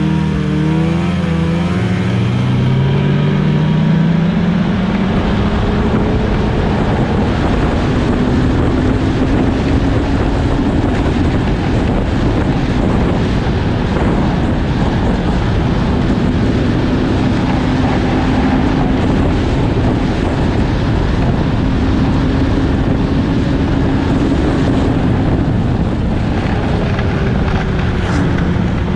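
Snowmobile engine rising in pitch as it accelerates over the first few seconds, then running steadily at trail speed with heavy wind noise over it. The engine pitch drops briefly near the end as it slows.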